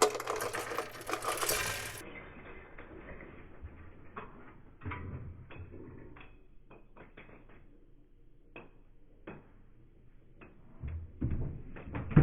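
Small plastic LEGO Bionicle pieces being dumped out onto a surface, rattling and clattering together for about two seconds, then scattered single clicks as pieces settle and are handled, with some louder handling bumps near the end.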